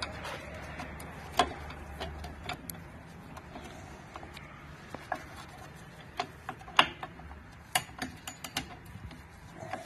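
Metal clicks and clinks of drum brake shoes, return springs and adjuster being worked into place on a Nissan Sentra's rear backing plate, irregular and scattered, the sharpest about one and a half seconds in and near seven seconds in.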